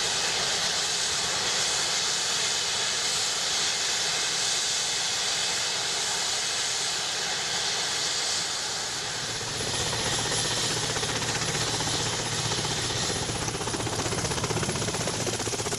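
Helicopter in flight: a steady loud rushing of engine and rotor noise. About nine to ten seconds in, a deeper, fast, even beat of the rotor comes in under it.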